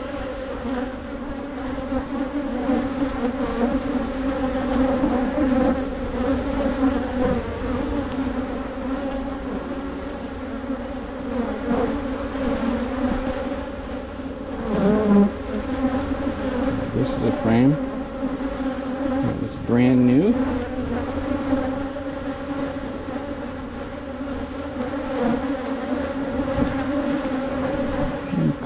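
Swarm of agitated honeybees buzzing in a steady, dense drone close around a head-worn GoPro while their hive is opened for inspection.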